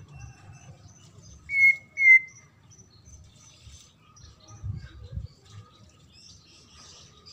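White-rumped shama giving two short, loud whistled notes in quick succession about a second and a half in, among faint high chips. Two soft low thumps follow near the middle.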